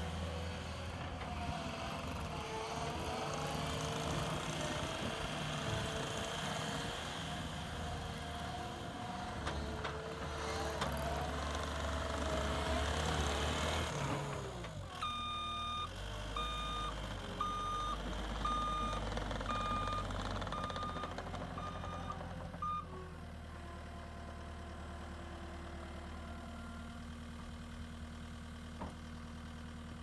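Diesel engine of a CAT 259D compact track loader running under load as the machine drives and turns, its pitch rising and falling. About halfway through, the backup alarm beeps steadily, a little under once a second, for about eight seconds as it reverses, then the engine settles to a quieter steady run.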